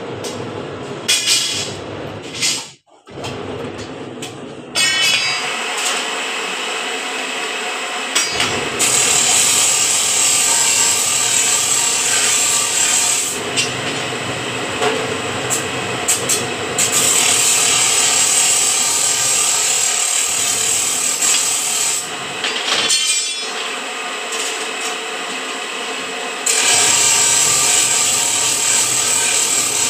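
Electric bar-bending machine running as its turning die bends a square steel bar into a scroll, with a steady hum under a harsh scraping and grinding of steel on steel. It cuts out for a moment about three seconds in, then grows louder and quieter in several stretches.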